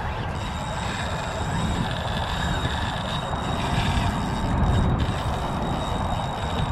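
Spinning reel being cranked to bring in fishing line, over a steady low rumble.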